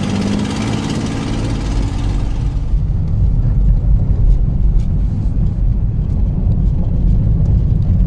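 An outrigger boat's engine running steadily, with wind and water noise, then, about three seconds in, a sudden change to the low rumble of a Nissan car's engine and tyres, heard from inside the cabin while driving.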